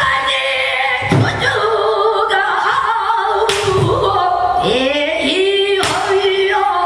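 Female pansori singing: one long, wavering, ornamented sung line, with a buk barrel drum struck sharply three times, at roughly two-and-a-half-second intervals.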